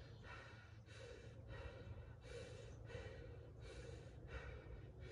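A man breathing hard in faint, quick, even breaths in and out, winded and recovering from a round of push-ups and dumbbell clean and presses.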